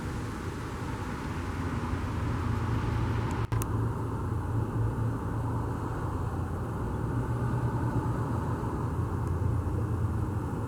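Steady low outdoor rumble with no siren tone sounding, broken by a single sharp click about three and a half seconds in.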